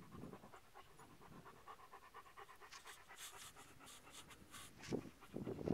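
Dog panting quickly and steadily, with two louder muffled bumps near the end.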